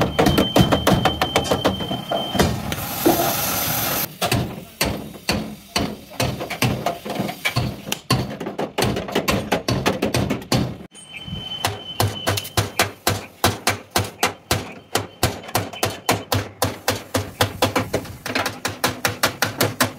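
Rapid hammer blows on the sheet-steel panels of a Hino truck cab, several strikes a second in a steady rhythm, with a short hiss about three seconds in.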